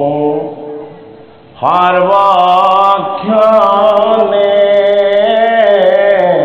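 A man singing a devotional chant solo, in long drawn-out, wavering notes. One line fades away near the start, and after a short pause a new line begins about one and a half seconds in and is held on.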